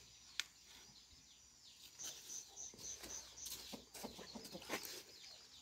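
Faint bird calls. About two seconds in, a run of short, high chirps starts at roughly three a second, with a few soft, lower calls scattered through.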